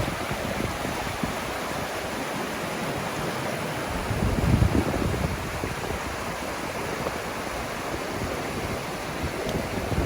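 Creek water rushing steadily, the creek running high after heavy rain. About halfway through there is a brief, louder low rumble.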